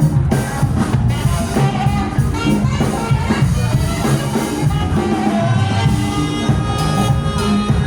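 A live band playing, with drum kit, a bass line and horns.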